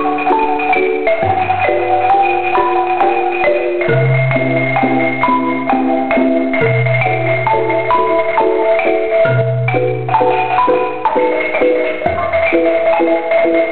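Marimba ensemble playing a slow piece: mallets strike the wooden bars in repeated chords under a higher melody, over low bass notes each held for a couple of seconds.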